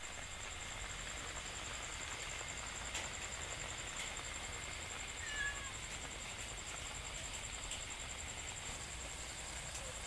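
Evening countryside ambience: a steady high-pitched insect trill, with a single short cat meow about five and a half seconds in.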